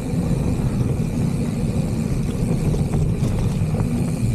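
Mountain bike riding fast down a dirt forest trail: a steady low rumble of tyre and wind noise, with a few faint clicks.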